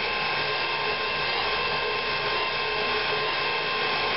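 KitchenAid tilt-head stand mixer running steadily at an even pitch, its dough hook kneading a still-crumbly pizza dough of flour and water.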